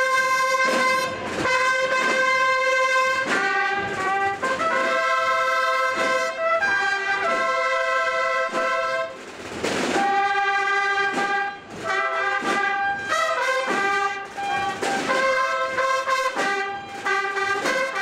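A band of marching bugles playing a slow processional tune: held notes in phrases a few seconds long, with drum strokes in the short gaps between phrases.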